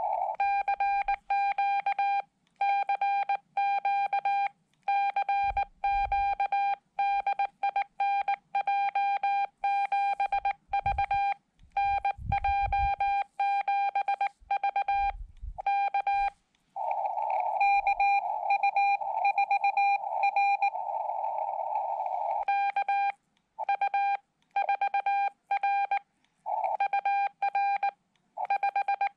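Morse code from a Xiegu X5105 transceiver: a single steady-pitched tone keyed in quick dots and dashes. In several stretches, mostly in the second half, band hiss surrounds the tone as a station is received through the narrow CW filter. A few faint low thumps come in the first half.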